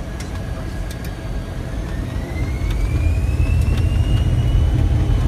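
Airliner engines spooling up, heard from inside the aircraft: a thin whine rising steadily in pitch from about two seconds in, over a low rumble that grows louder. This is typical of thrust building for the take-off roll.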